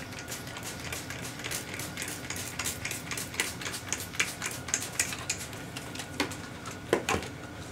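Trigger spray bottle spritzing water over a cracked, flaking paint surface: a quick, irregular run of short sprays and clicks, several a second, with a louder pair near the end.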